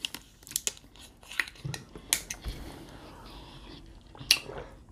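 Plastic water bottle being opened and handled: scattered small clicks and crackles from the cap twisting and the thin plastic flexing, with one sharper click near the end.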